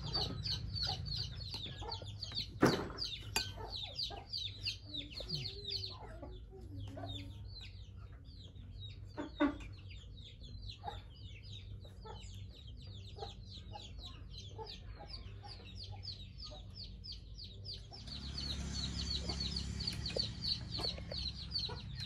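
Chickens clucking and chirping in quick, high calls, with a sharp knock a few seconds in and another near the middle.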